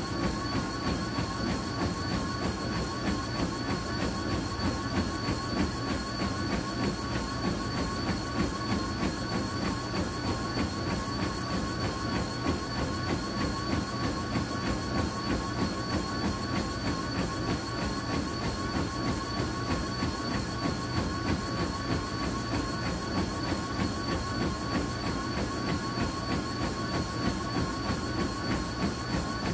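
Motorised treadmill running at 8.5 mph under a runner: a steady motor whine with two high tones, and the fast, even thud of running footfalls on the belt.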